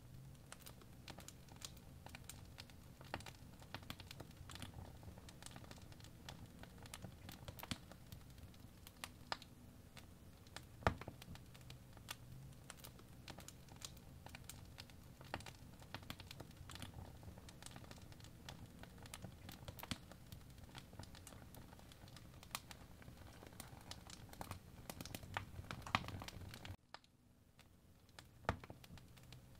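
Apple Pencil tip tapping and ticking on the iPad's glass screen as strokes are drawn: many short, irregular clicks over a low steady hum. The hum drops away suddenly near the end while the ticks go on.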